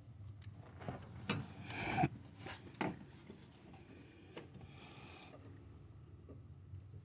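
Hand tools working on a hose clamp: several sharp clicks and knocks, with two spells of scraping, a short one about two seconds in and a longer one past the middle.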